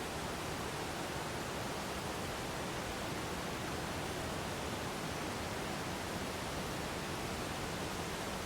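Waterfall: water falling with a steady, even rush.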